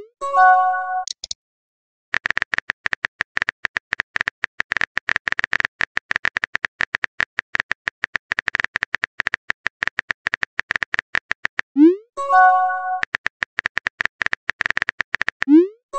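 Texting-app sound effects. A short chime of several notes opens, then about ten seconds of rapid keyboard-tap clicks. A rising whoosh and the same chime follow as a message pops up, then more tapping, ending in another whoosh near the end.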